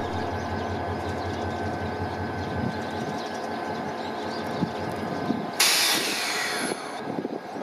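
DEL4425 diesel shunting locomotive running with a steady engine hum whose low drone drops off about two and a half seconds in, with a couple of light clanks. About five and a half seconds in comes a loud, sharp hiss of released compressed air, lasting about a second, typical of air brake lines venting during coupling.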